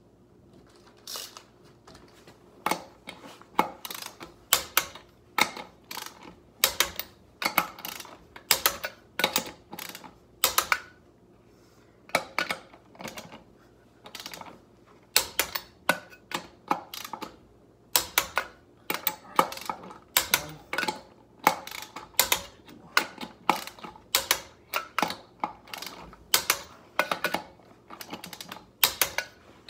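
Hand ratchet clicking in quick runs of sharp clicks as the wheel's lug nuts are tightened, with a couple of short pauses between nuts.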